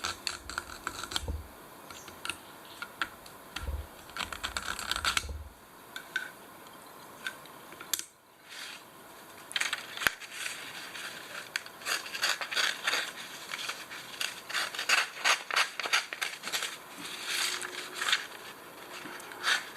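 Steel knife blade drawn through a pocket carbide sharpener: short, sharp metal-on-carbide scraping strokes, a few scattered at first, then a quick steady run of about two or three strokes a second through the second half.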